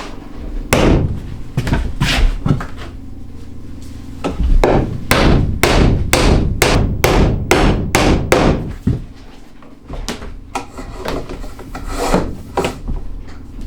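Hammer striking wood in a series of blows: a few at first, then a quick run of about two to three a second, then slower, spaced blows.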